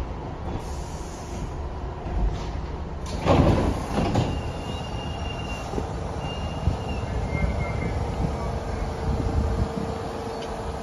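New York City Subway 1 train (R62A cars) at a station, with a steady rumble throughout. About three seconds in the sliding doors shut with a loud thud, and a steady tone from the train sets in a few seconds later.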